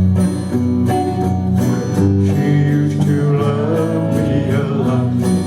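Country band music in a short instrumental passage between sung lines: acoustic guitar with bass and a melody line over it.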